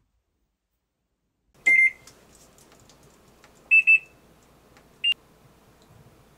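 Top-loading washing machine's control panel beeping as its buttons are pressed: one beep about a second and a half in, a pair of slightly higher beeps about two seconds later, then a single short beep.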